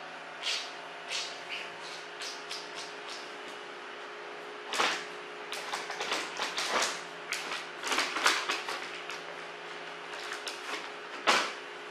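Irregular clicks, knocks and rustles of handling, with a quick run of small ticks in the first few seconds and sharper clusters later, the loudest near the end, over a steady low hum.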